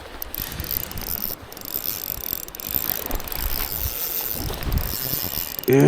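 Fishing reel clicking and whirring as a big steelhead is played on light line: the ratchet-like sound of the reel being cranked and its drag giving line.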